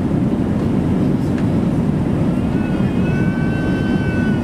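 Steady low rush and rumble of an Airbus A380's passenger cabin in cruise. About two and a half seconds in, a faint thin high tone joins it and holds.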